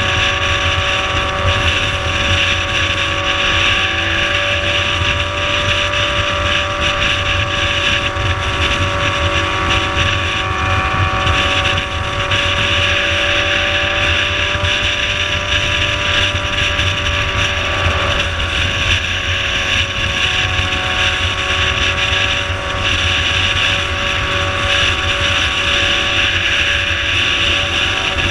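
Motorcycle engine running at a steady highway cruise, with wind rushing over the microphone. The engine note shifts briefly about two-thirds of the way through.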